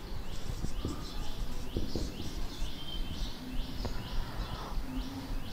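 A bird chirping over and over, about twice a second, together with the faint scratch of a marker writing on a whiteboard.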